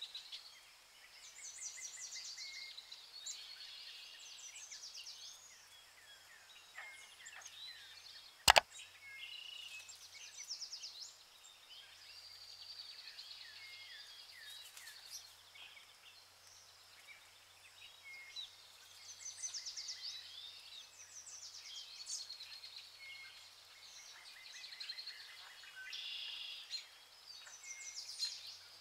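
Birds chirping and trilling: many short, high calls. There is a single sharp click or knock about a third of the way through.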